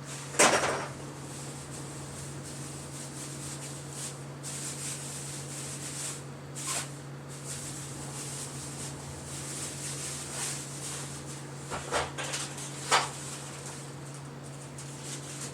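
A steady low hum with a few short knocks and rustles, the loudest a sharp knock about half a second in and two more near the end.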